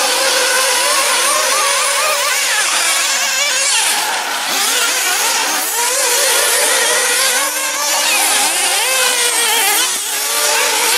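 Several 1/8-scale nitro off-road RC buggy engines running at once, many overlapping whines rising and falling in pitch as the cars throttle on and off through the corners and jumps.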